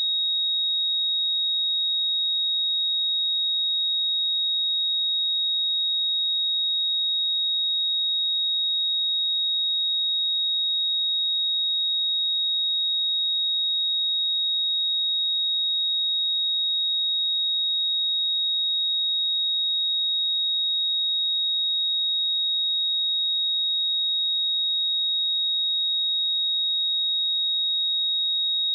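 A pure 3771 Hz sine-wave test tone, one steady high-pitched pitch held without change.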